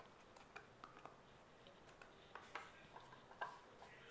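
Near silence with a few faint, scattered light clicks as butter is spread around the inside of a paper-lined cake tin.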